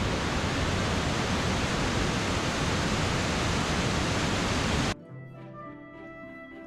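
Waterfall heard close up: a loud, steady rush of falling water that cuts off abruptly about five seconds in. Soft background music with held notes follows.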